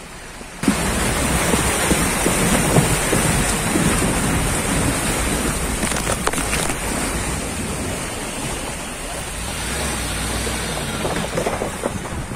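Steady rushing noise of riding on a moving pickup truck: engine and road rumble with wind buffeting the microphone, starting abruptly about half a second in. A few brief scrapes around the middle as leafy branches brush past.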